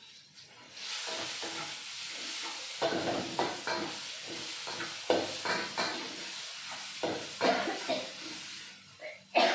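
Ground spice paste sizzling in hot oil in a metal pan, the hiss starting suddenly about a second in, then a spatula scraping and stirring the paste in repeated strokes as it is sautéed until fragrant.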